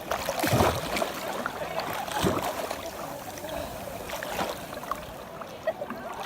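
Sea water sloshing and splashing close to the microphone as someone swims, with two louder splashes about half a second and two seconds in.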